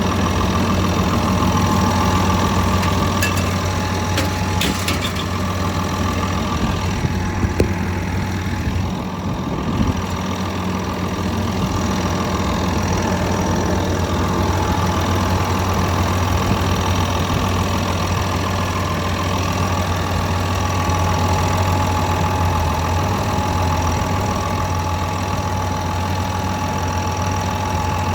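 Komatsu D65EX-17 bulldozer's diesel engine idling steadily, with a few short clicks in the first ten seconds.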